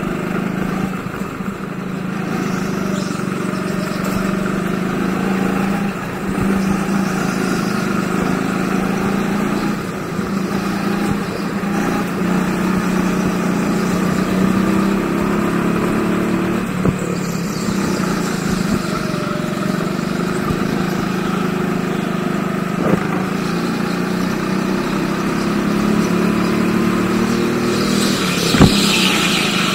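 Rental go-kart engine running steadily under way, its pitch rising and falling a little with the throttle. A few light knocks and one sharp knock near the end.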